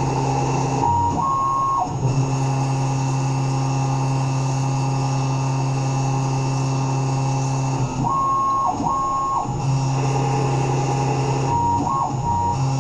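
Tormach 1100 CNC mill running: a steady low motor hum with higher steady whines, interrupted three times by brief changes to higher stepped whines, as when the machine's axes move.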